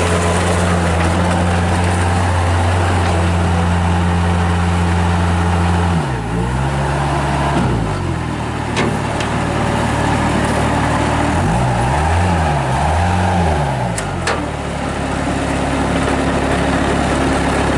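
A Bobcat 763 skid steer's Kubota diesel engine running at high revs. Its pitch dips and recovers about six seconds in, and twice more later, as the machine is driven and worked, with a couple of sharp clanks.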